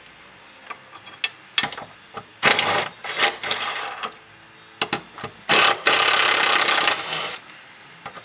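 A cordless power tool runs in three bursts, the last and longest about two seconds, as it backs out the bolts of the transmission support beam on a Subaru STi. Short metallic clicks and knocks fall between the bursts.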